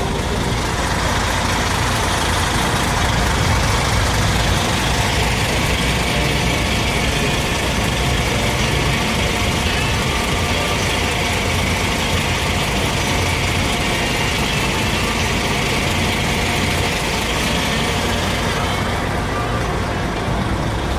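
Car ferry's engines running steadily during the crossing, a constant low drone with a wash of mechanical noise over it.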